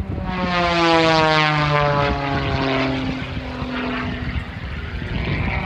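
Small aerobatic propeller plane making a low pass: its engine and propeller drone falls steadily in pitch as it goes by. It is loudest about a second in, then fades.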